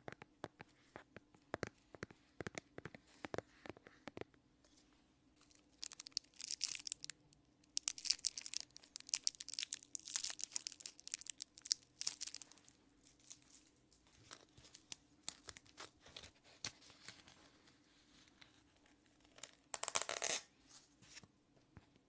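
Fingers tapping and scratching plastic phone cases close to a microphone: sharp separate taps in the first few seconds, long stretches of dense rasping scratches from about six to twelve seconds in, scattered taps after, and one short loud scratch near the end.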